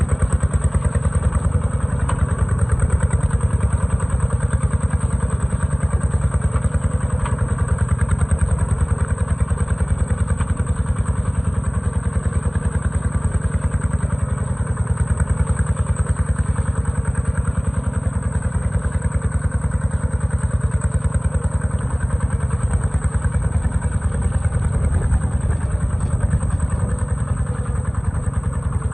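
Kubota tractor's diesel engine running steadily with a rapid, even beat that holds the same pace throughout.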